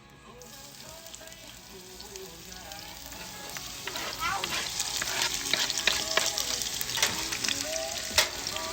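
Sliced peppers and onions sizzling as they go onto a hot cooking surface and are stirred, the frying hiss growing steadily louder. A sharp clink of a utensil comes near the end.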